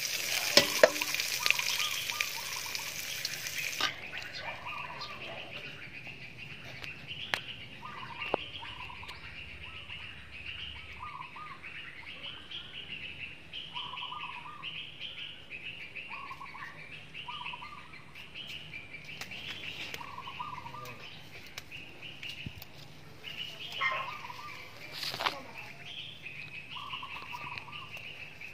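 Birds calling repeatedly, short chirping notes about once a second or faster, after a loud hiss that fills the first four seconds and cuts off abruptly.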